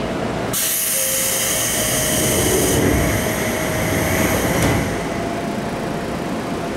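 Air-operated sliding doors of a Seibu new 101 series commuter car closing: a sudden hiss of compressed air about half a second in that fades over the next few seconds. A steady hum from the car's equipment runs underneath.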